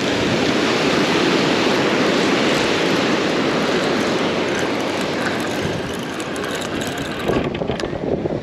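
Steady, loud rushing noise of wind and ocean surf, easing a little near the end, where a few faint clicks come in.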